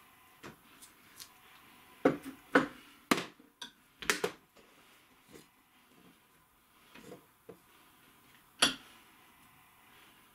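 Knocks and clunks of a birch log round being set into a small bench vise and clamped, with a cluster of loud knocks about two to four seconds in, a few lighter taps, and one sharp knock late on.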